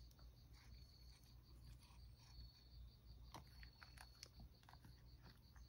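Near silence: room tone with a faint, high, evenly pulsing chirp at about five pulses a second, and a few faint ticks.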